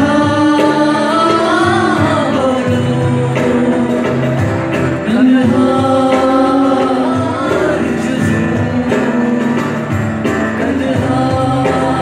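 Live band performance: acoustic guitars accompanying singing in long held notes that slide between pitches.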